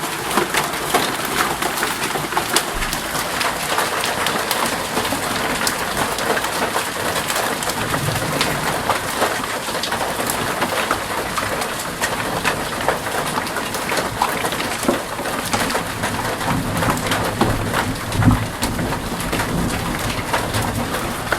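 Hail falling steadily: a dense clatter of many hailstones striking hard surfaces, with a few low, deeper swells underneath.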